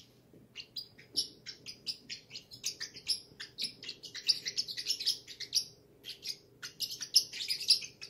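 Young, partly feathered parrot chick chirping in quick, short, high calls, several a second, with a brief pause about six seconds in.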